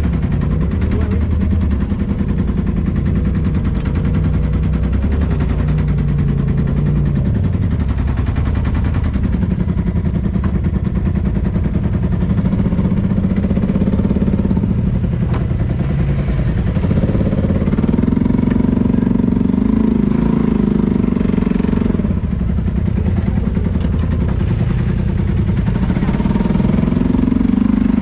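Side-by-side UTV engine running under light throttle, its speed rising and falling every few seconds.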